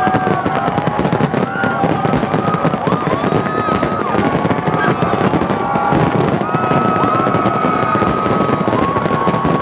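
Fireworks display: a dense, continuous crackle of many small pops and bursts, with several steady tones held for a second or more over it.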